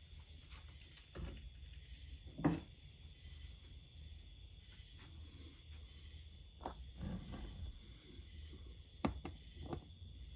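A few short light knocks and clunks as a wheel hub and hand tools are handled on a workbench, the sharpest about two and a half seconds in and several smaller ones in the last four seconds, over a faint steady hum.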